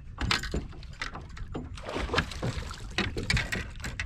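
A hooked bass thrashing at the surface beside the boat as it is played in: a run of irregular splashes and sharp knocks.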